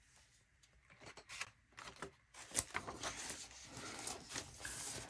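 Pages of a model-kit instruction booklet being turned and smoothed flat: soft paper rustling with a few light crinkles, starting about a second in and growing a little busier after that.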